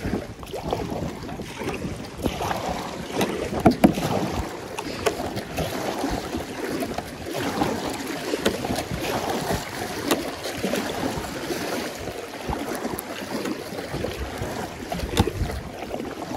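Kayak being paddled: irregular splashes of paddle strokes and water sloshing against the hull, with some wind buffeting the microphone.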